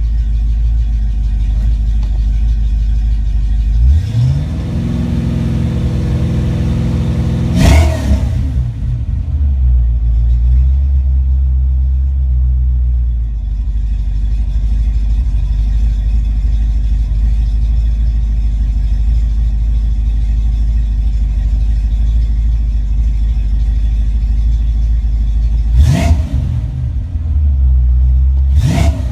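Fox-body Ford Mustang 5.0 small-block V8 idling, then revved up and held for about three and a half seconds starting about four seconds in, before snapping back to idle. Two quick throttle blips come near the end. The revs check a rebuilt A9L mass-air computer for breakups.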